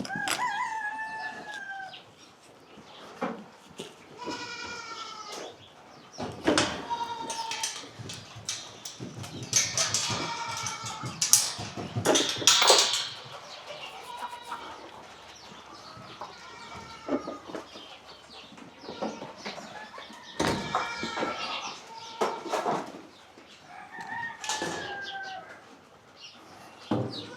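Barnyard animals calling: goats bleating and chickens clucking and crowing, a new call every second or two.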